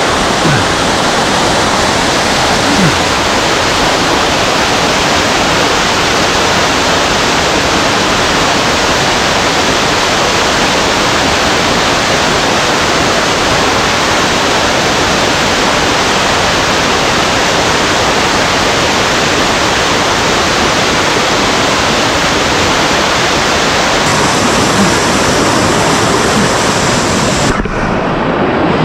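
Loud, steady rush of mountain-stream water pouring over cascades, with a brief dip near the end.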